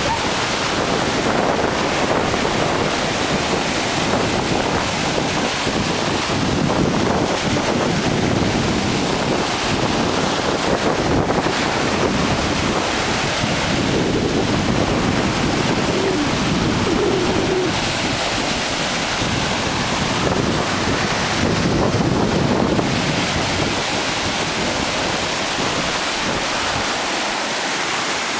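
Sea surf: small waves breaking and washing up the beach, swelling and easing every several seconds, with wind buffeting the microphone.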